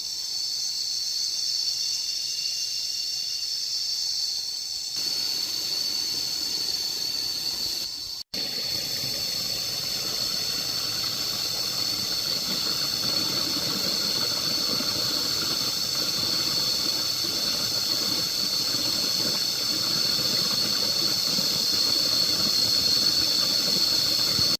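Chorus of cicadas singing in a steady, high, shrill buzz. A lower rushing noise joins about five seconds in, and the sound cuts out for an instant about eight seconds in.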